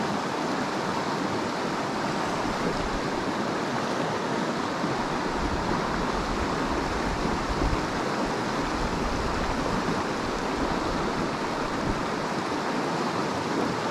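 Small rocky stream running steadily over shallow riffles, an even, unbroken rush of water.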